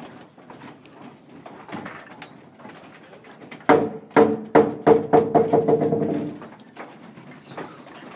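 Wooden machinery of a working oil windmill knocking. A run of heavy rhythmic blows, about three a second, each with a ringing tone, comes a little past the middle and fades after a couple of seconds; lighter scattered knocks fill the rest.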